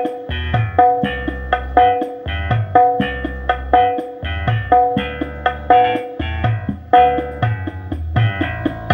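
Music with a plucked-string melody, drums and a heavy bass line returning about once a second, played through a bare 15-inch RCF LF15X400 knock-off woofer. The signal runs straight from a phone into a power amplifier, with no other processing.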